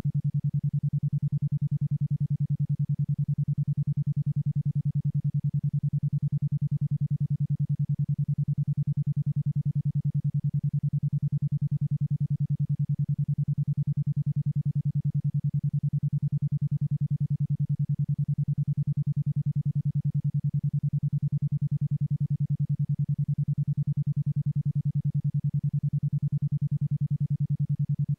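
Electronic isochronic tone: a steady low tone pulsed on and off at 10.2 Hz, about ten even beats a second, the alpha-range pulse rate used for brainwave entrainment.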